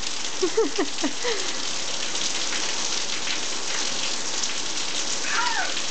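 Heavy rain falling on a concrete driveway: a steady hiss of splashing drops. Brief voice sounds break in about half a second in and again near the end.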